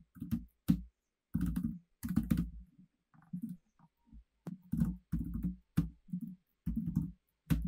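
Typing on a computer keyboard: runs of quick keystrokes broken by short pauses.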